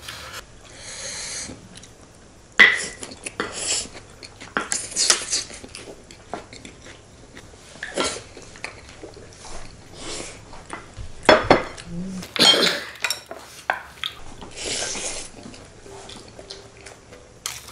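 Cutlery and dishes clinking at a meal table: irregular sharp clinks and knocks of spoons against plates and bowls, the loudest about two and a half seconds in and again around eleven to twelve seconds.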